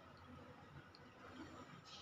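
Near silence: faint room tone with a steady low hum and a few tiny ticks.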